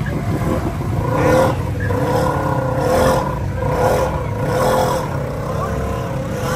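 Off-road vehicle's engine running under a heavy low rumble, revving in about five swells roughly a second apart.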